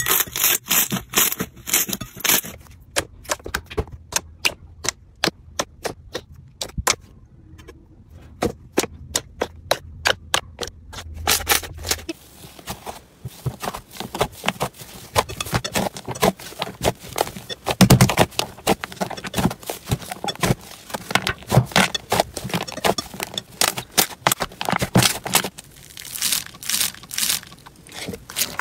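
Crunchy slime being pressed and squeezed by hand, giving a run of sharp crackles and clicks. About twelve seconds in the crackling becomes much denser.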